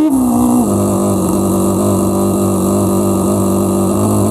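Motorcycle engine running close to the microphone at a steady low speed. Its note drops in the first half-second, then holds level.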